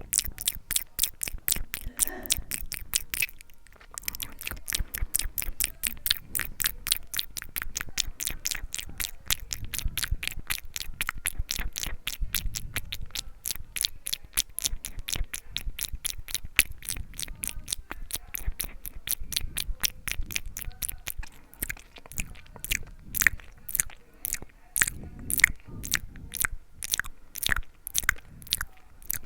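Wet mouth sounds made close to the microphone: a fast, continuous run of lip and tongue clicks and smacks, with a brief pause about three and a half seconds in. In the last several seconds they slow to separate, louder clicks about two a second.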